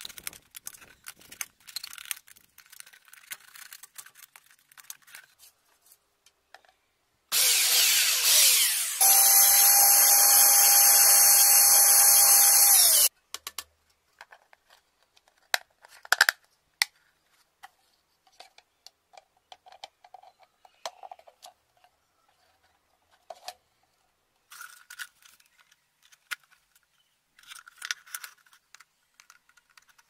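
Electric drill running for about six seconds, a loud steady whine that cuts off abruptly, drilling a hole through a plastic lid. Before and after it, light clicks and scraping of a utility knife cutting a plastic bottle and of plastic parts being handled.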